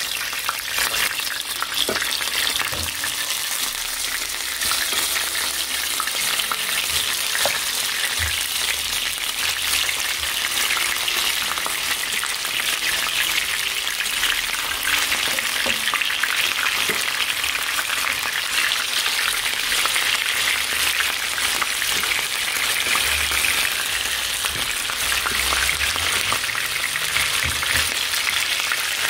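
Pieces of smoked chicken frying in hot oil in a pan: a steady sizzle thick with fine crackling spatters.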